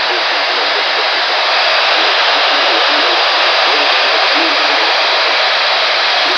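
Steady radio static: a loud, even hiss from a weather radio receiver with no clear signal, with a faint, garbled voice buried underneath.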